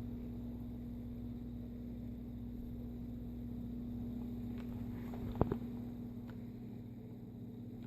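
Steady electrical hum, with a few short clicks of a hair crimper's plates closing on the hair, the loudest a quick double click past the middle.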